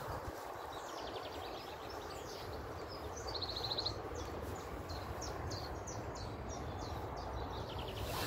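Small songbirds chirping, with a quick high trill about three and a half seconds in, over a steady low outdoor background rumble.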